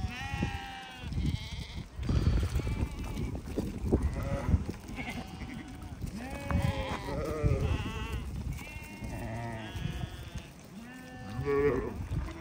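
A flock of sheep bleating, many short overlapping calls at different pitches.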